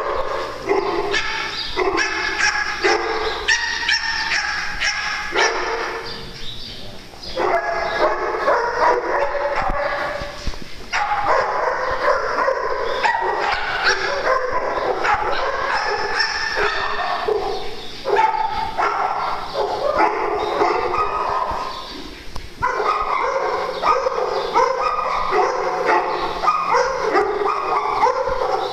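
A pack of dogs barking and yipping at play, many voices overlapping in a near-continuous din with a few short lulls.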